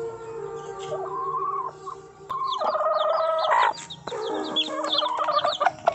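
Native chicks peeping in a rapid string of short, falling high chirps, with a mother hen clucking among them, starting about two and a half seconds in. Before that, soft background music.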